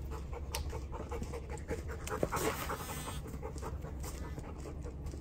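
A dog panting, in a run of short, uneven breaths over a steady low rumble.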